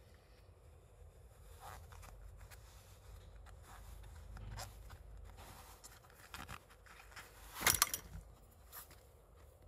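Rubber dry glove being handled: faint rubbing and rustling as it is pulled and turned, with one louder, brief scrape about three-quarters of the way in.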